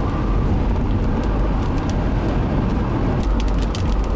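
Road and engine noise inside a moving car, a steady low rumble, with scattered drops ticking against the windshield that come much more often near the end.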